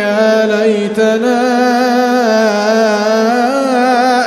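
A male Quran reciter's voice holding a long, drawn-out melodic note in chanted tajweed recitation, its pitch wavering gently, with a short break about a second in.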